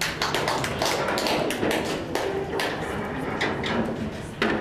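Pool cue striking the cue ball and pool balls clicking against one another and the cushions: a run of sharp, irregular clicks and knocks.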